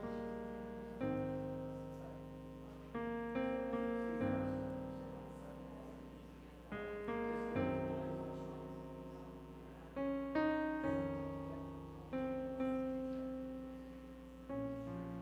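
Slow, gentle solo piano music: chords struck every second or two, each left to ring and fade before the next.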